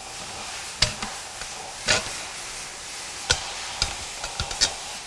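Stainless steel bolts knocking and clicking against the stainless steel flange of a pulsation dampener as they are pushed through the bolt holes of its bottom half: about six sharp, irregular clicks over a steady low hiss.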